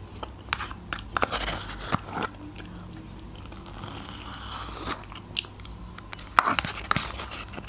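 Eating sounds: a metal spoon clicking and scraping inside a plastic cup of soft curd dessert, with wet mouth sounds as the spoonfuls are eaten. The clicks come irregularly and are short and sharp.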